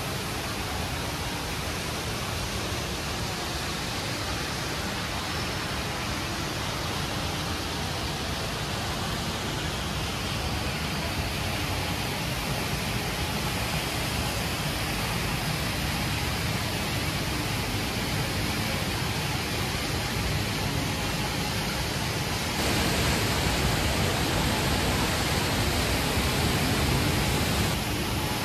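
Steady rushing of the Rain Vortex, a giant indoor waterfall, heard as an even wash of noise. It grows louder for about five seconds near the end.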